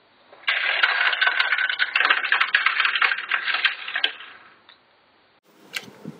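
Small plastic toy seeds tumbling down the chute of a Mega Bloks toy silo into the seeder bin: a dense clatter of many small clicks lasting about four seconds. A few light plastic knocks follow near the end.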